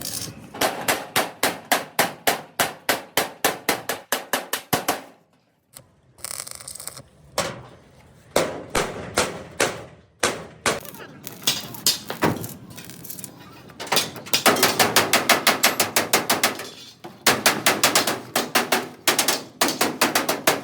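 Hammer blows on metal, quick evenly spaced strikes of about four or five a second, in several runs with short pauses between.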